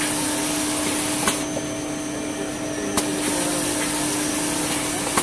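Maxi roll tissue paper log saw cutting machine running: a steady hum with a sharp click about every 1.7 seconds, and a high hiss that drops away in the middle and comes back.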